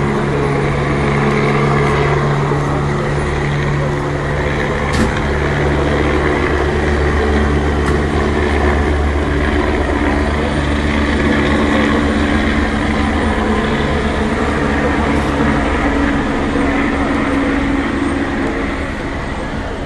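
Military helicopter flying low overhead, its rotor and engine making a loud, steady drone that eases a little near the end, with a large vehicle engine idling close by.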